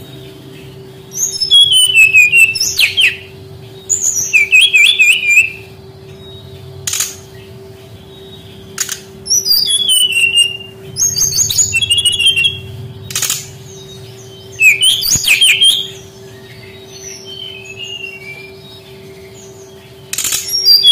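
Brown-chested jungle flycatcher singing: short phrases of quick, high, falling whistled notes, repeated every couple of seconds with pauses between. A steady low hum runs underneath, and a few sharp clicks come between the phrases.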